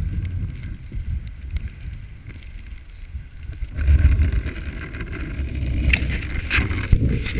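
Dog sled running over snow behind a husky team: a low rumble of wind and vibration on the sled-mounted microphone, with the hiss and rattle of the sled growing louder about four seconds in as the sled jolts, and a few sharp knocks near the end.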